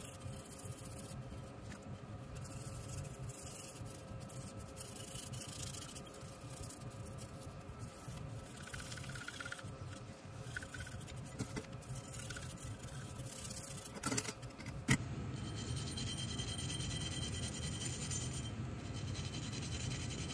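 Small brush scrubbing the inside of a metal air-screwdriver housing wet with solvent, a steady scratchy rubbing. Two sharp knocks come about two-thirds of the way through.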